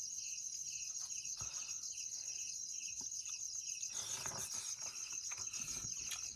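Insects, crickets, chirping steadily: a high rapid trill with a lower chirp repeating about twice a second. A short soft clatter comes about four seconds in.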